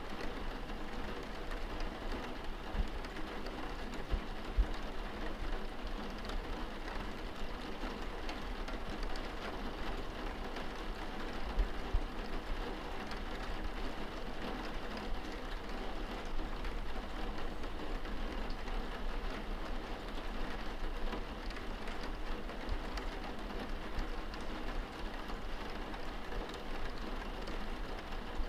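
Steady rain pattering on window glass, heard from inside the room, with a few soft low thumps scattered through it.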